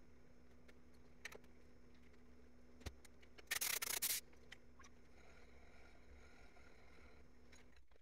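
A short rubbing, scraping noise about three and a half seconds in, lasting well under a second, after a couple of light clicks, over a faint steady hum.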